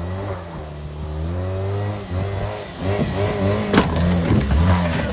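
Saturn Vue SUV's engine revving hard as it accelerates toward a dirt tire jump, then labouring unevenly as it climbs onto the mound, with a sharp knock about four seconds in as the car strikes the dirt.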